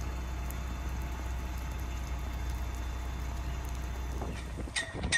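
Jeep Cherokee idling steadily with a low, even hum. Near the end, a brief sharp sound with a high tone.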